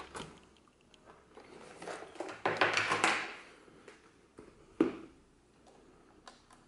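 Handling noise as a Super 8 camera is lifted out of its hard carrying case: a scraping rustle midway, followed by a single sharp knock.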